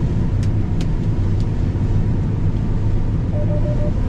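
Combine harvester running steadily while cutting soybeans, its engine and threshing drone heard from inside the cab. There are a few light clicks early on and a short series of quick beeps near the end.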